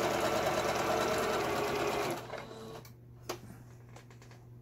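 Singer Fashion Mate 7256 sewing machine running steadily as it sews a test seam through fabric after repair, stopping about two seconds in. A sharp click follows about a second later.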